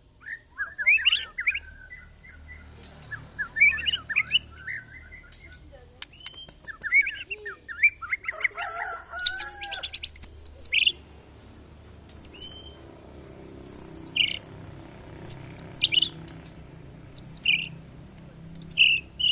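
White-rumped shama (murai batu) singing: varied whistled and warbled phrases for the first ten seconds or so, with a quick run of clicks near the middle, then a short two-part call repeated about once a second.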